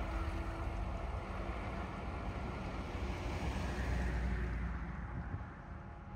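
Jet airliner engine noise: a steady rumble with a faint whine that swells about four seconds in, then fades near the end as the plane moves away.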